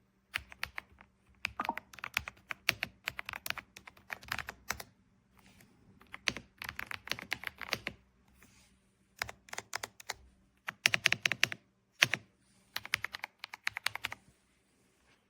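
Typing on an AULA S98 Pro mechanical keyboard: rapid key clicks in bursts of a second or two, with short pauses between them.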